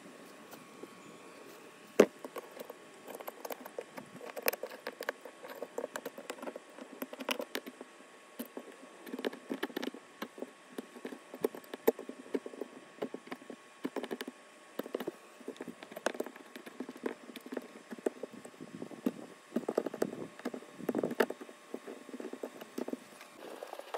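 Old silicone sealant being scraped and picked off the metal flashing and screws around a roof-mounted stovepipe flue: irregular scraping strokes and small clicks, with one sharp click about two seconds in.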